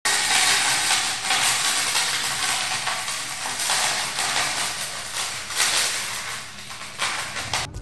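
Metal coins pouring down in a steady stream and clinking onto a growing pile, a continuous jingling shower.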